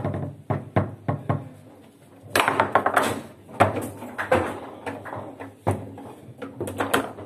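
Table football play: the hard ball being struck by the figures and knocking against the table, a series of sharp knocks with a rapid flurry about two seconds in.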